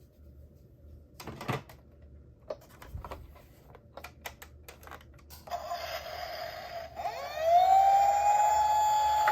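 A few faint clicks and knocks, then a hiss, and then an electronic toy emergency-vehicle siren from a minicar's small speaker: a rising wail that levels off into a loud, steady high tone.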